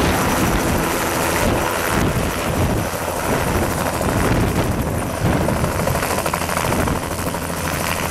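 Bell 206 JetRanger III helicopter's Allison 250 turboshaft running and main rotor chopping as it hovers low and settles onto its skids near the end.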